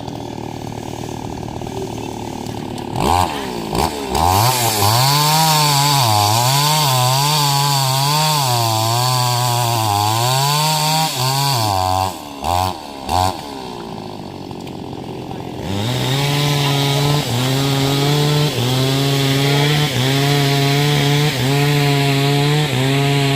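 Stihl MS 381 two-stroke chainsaw running low, then revved up about three seconds in, its pitch rising and sagging as it cuts into wood. It drops back to idle with a couple of quick throttle blips, then runs at full revs again with a short dip about once a second.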